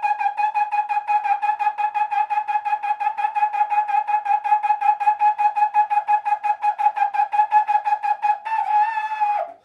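Trombone tonguing the same high note over and over in rapid, even repetitions on one breath, a high-register endurance exercise. About 8.5 seconds in it holds the last note for a second, and the note sags and drops off at the end.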